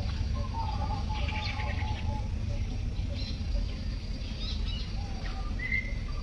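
Outdoor ambience: a steady low rumble with a few faint, scattered bird chirps.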